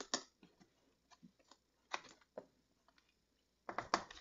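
Plastic spoon scooping and scraping white embossing powder in a plastic tub and sprinkling it over cardstock: scattered light ticks and short scratchy scrapes, the loudest a cluster near the end.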